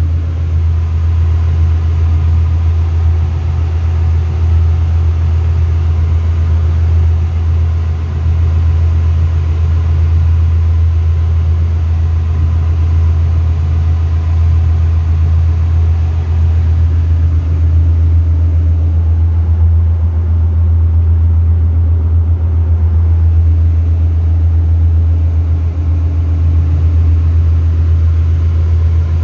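Steady, loud low drone of running engine-room machinery aboard a ship, heard from inside a cylinder liner of a Sulzer 6RTA62 main engine that is itself stopped for a piston overhaul.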